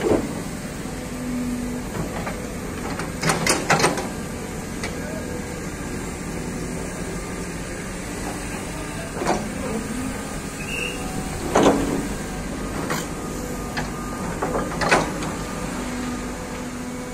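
Hydraulic excavators running steadily while they dig and load soil, with several sharp knocks from the digging, a quick cluster of them a few seconds in and single ones later.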